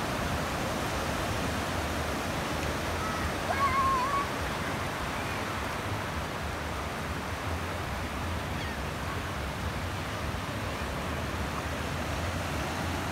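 Small ocean waves breaking and washing up the sand in a steady rush. About four seconds in, a brief faint wavering high call rises over it.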